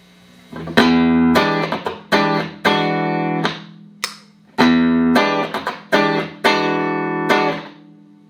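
Clean electric guitar, a Stratocaster played through Roland JC-120 amps with a Boss CP-1X compressor pedal in the chain, strumming a short phrase of ringing chords, then repeating it after a brief pause.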